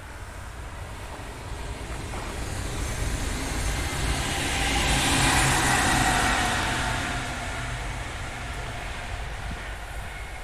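NS ICM (Koploper) electric intercity train passing on the rails, its rolling and motor noise rising to its loudest about five to six seconds in, with a low hum at the peak, then fading away.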